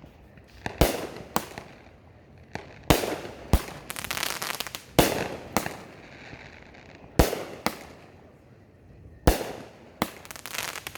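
Fireworks going off: a series of sharp, loud bangs at irregular intervals, each trailing off in an echo, with a quick run of crackling about four seconds in.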